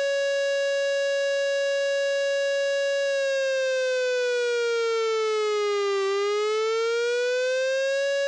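Electronic siren tone, the attention signal of a mock emergency alert broadcast, with a buzzy stack of overtones. It holds one pitch for about three seconds, slides down over the next three, then slides back up to where it started.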